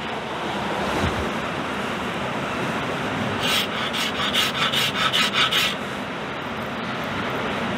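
Metal-on-metal scraping of a hand scraper with a carbide insert worked over the hardened cast-iron face of a steam engine's slide valve, with a run of quick strokes, about four or five a second, about halfway through.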